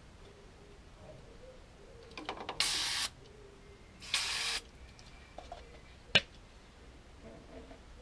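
Aerosol spray can giving two short hisses about a second and a half apart. A single sharp click follows about six seconds in.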